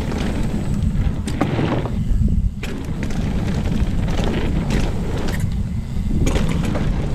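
Wind buffeting a chest-mounted camera's microphone during a fast mountain-bike descent, over the rush of tyres on dirt, with repeated sharp rattles and knocks from the bike over bumps.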